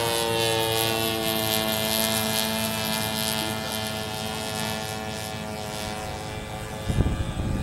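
Engine of a radio-controlled model plane flying overhead: a steady propeller drone with many overtones that grows fainter toward the end. A rough low rumble cuts in near the end.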